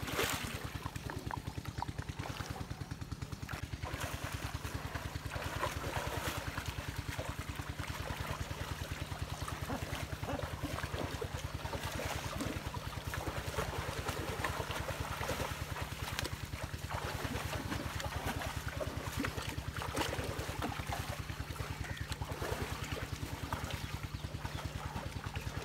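Water splashing and trickling as water buffalo wade and climb out of a muddy canal, over a steady low drone of an engine running.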